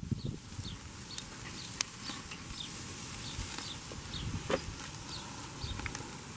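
Chuck eye steaks sizzling on the grate of a charcoal Weber kettle grill, a steady hiss. A faint high chirp repeats two or three times a second, and there are a couple of light clicks.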